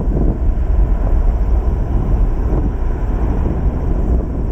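Boeing 767-300ER's jet engines heard as a steady low rumble after touchdown, as the airliner rolls out on the runway.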